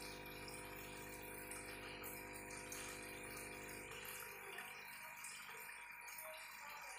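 Aquarium air stone bubbling with a steady electric hum from the tank's pump; the low part of the hum drops away about four seconds in.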